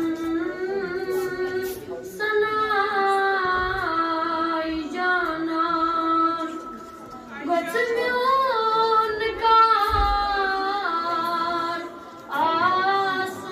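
A boy singing a Kashmiri naat unaccompanied, in long held, ornamented phrases that glide in pitch, with short breaks between phrases about two, seven and twelve seconds in.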